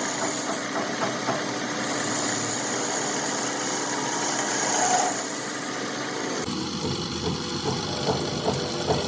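Workshop machinery running steadily, with a high whine that drops out and returns. About six and a half seconds in, the sound cuts abruptly to a rougher machining noise with scattered clicks.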